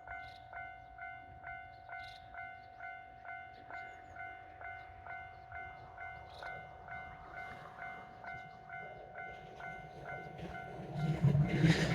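Japanese railroad crossing warning bell ringing its "kan-kan" at about two strokes a second over a steady tone. Near the end a train's running noise rises and becomes loud as it reaches the crossing.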